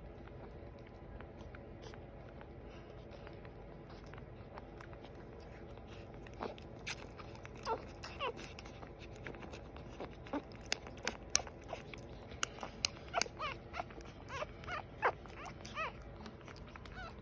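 Newborn American Bully puppies squeaking and whimpering while they nurse, among short wet suckling clicks. The squeaks begin about six seconds in and come thick and fast over the last few seconds.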